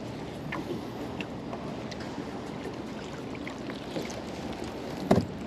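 Water sloshing around a small boat, with light scattered clicks and one sharp knock about five seconds in.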